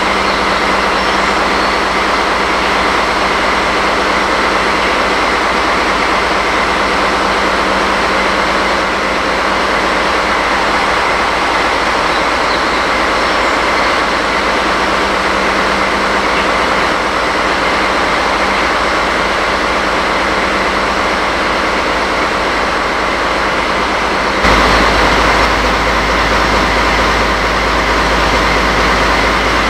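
DD16 diesel-hydraulic locomotive standing with its engine idling: a steady, loud running sound with a low hum. The sound changes abruptly about 25 seconds in.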